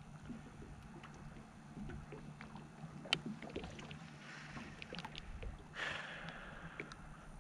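Small fishing boat on the water: a low steady hum under scattered small clicks and knocks, with a soft wash of water about six seconds in.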